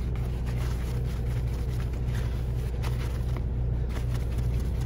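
Steady low drone of a semi truck's idling diesel engine, heard inside the cab, with light rustling and rubbing of paper towels wiping kitchen utensils.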